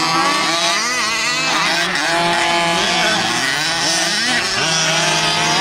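Several fifth-scale gas RC buggies' small two-stroke engines racing, revving up and easing off, their pitches rising and falling over one another.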